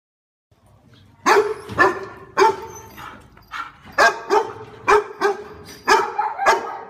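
A dog barking over and over, about two barks a second, starting about a second in.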